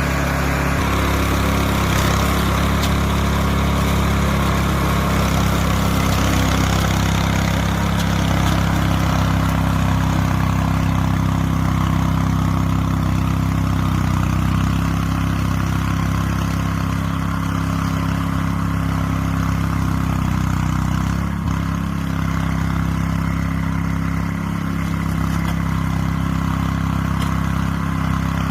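Small engine of a homemade radio-controlled mower running steadily, its pitch shifting slightly now and then.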